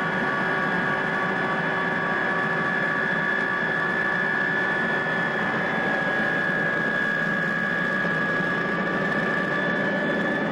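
Helicopter engine and rotor running steadily, heard from inside the cabin: a constant high whine over a dense mechanical drone.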